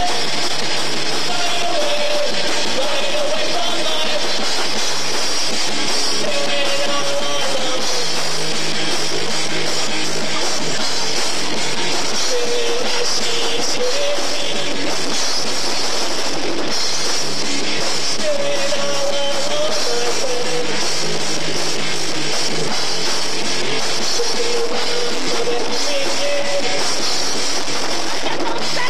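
Live rock band playing: drum kit, guitar and saxophone.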